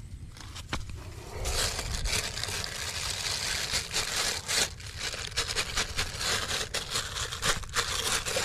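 Wet mud being scraped and packed with a bamboo stick and bare hands against a plastic sack. It makes a rough, continuous scraping with many small crackles, starting about a second and a half in.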